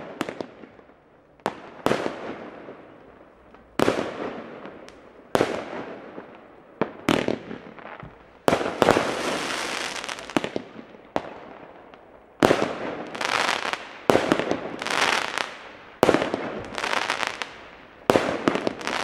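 Aerial fireworks going off: sharp bangs every second or two, each dying away in echo, with denser crackling stretches in the second half as the stars burst.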